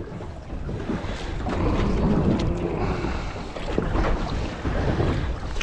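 Wind buffeting the microphone over water lapping against the hull of a small aluminium boat drifting at sea, with a few light knocks.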